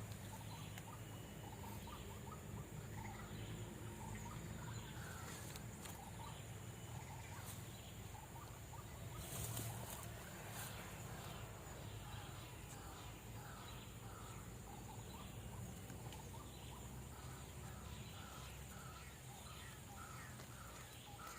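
White-breasted waterhen calls: short notes repeated about twice a second, clearest in the second half, over steady outdoor background noise with a thin high insect-like tone.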